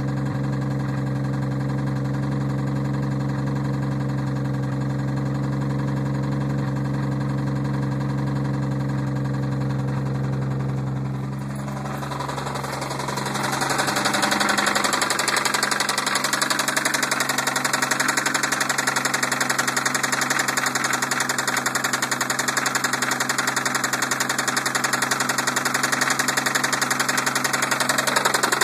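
1990 Toyota Supra Turbo's 7M-GTE turbocharged inline-six running with engine knock. It runs steadily for the first half. About halfway through the sound changes, becoming louder and noisier with a fast, dense knocking texture.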